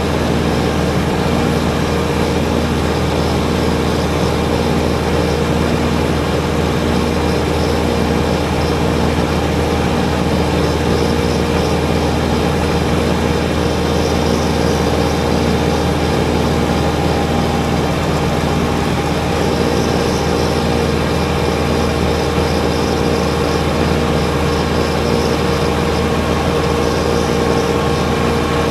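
Kubota BX23S compact tractor's three-cylinder diesel engine running steadily under load, with the front-mounted snowblower turning.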